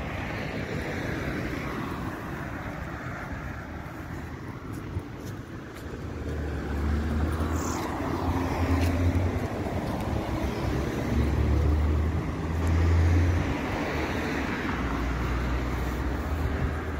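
Road traffic on a multi-lane street, cars passing one after another with a low rumble that grows louder about six seconds in.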